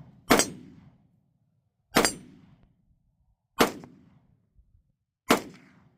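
Daniel Defense AR-15 rifle in 5.56 firing four single shots about a second and a half apart, each a sharp crack with a short echoing tail.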